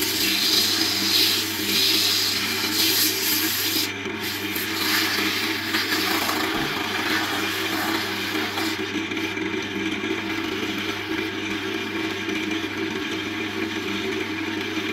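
Electric wood lathe running with a steady hum while sandpaper rubs against the spinning wooden spindle. The sanding hiss is loudest in the first four seconds and eases off after about nine.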